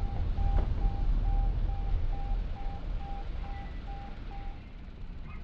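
Low rumble of a car driving. Over it, a short electronic beep repeats a little over twice a second and stops about four and a half seconds in, with a single click about half a second in.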